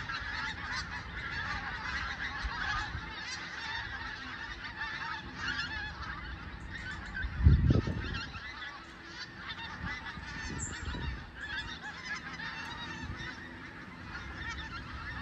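A large flock of geese honking continuously as it flies over, many calls overlapping. A brief low thump about halfway through.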